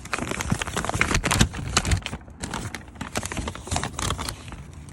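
Pages of a car owner's manual being flipped and handled: quick, irregular paper rustles and crackles, busiest in the first couple of seconds and then thinning out.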